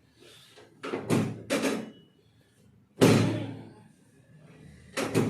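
Sharp thumps from chiropractic adjustment thrusts on the patient's back against the treatment table, each dying away quickly. Three quick ones come about a second in, the loudest at about three seconds, and two more near the end.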